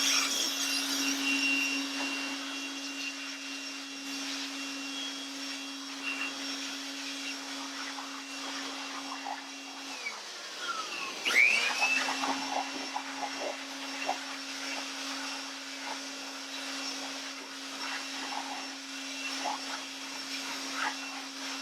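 Vacuum cleaner running steadily while vacuuming out a tool bag, with light knocks and scrapes of the nozzle. About ten seconds in it cuts off, then starts again a second or so later and its whine rises back up.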